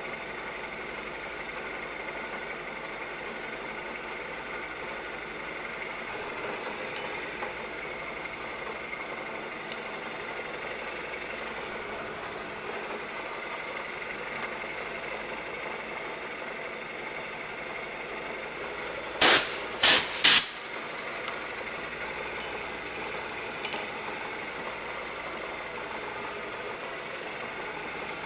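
Bridgeport milling machine running a half-inch two-flute end mill along a shaft under power feed, cutting a keyway: a steady cutting whir. About two-thirds of the way through, three sharp loud clicks come in quick succession.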